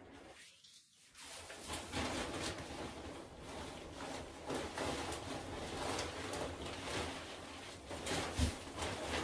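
Plastic bag of wood shavings rustling and crinkling as handfuls of shavings are scooped out by hand, starting about a second in. A dull thump about eight seconds in.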